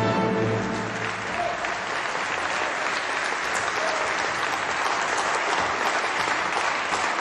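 A large theatre audience applauding steadily, as the last held chord of the music fades out within the first second.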